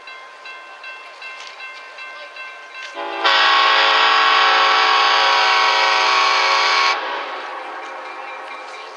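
Diesel locomotive air horn, on Clinchfield #800 leading the train, sounding one long blast of about four seconds. It starts about three seconds in and cuts off sharply, over the steady noise of the moving train.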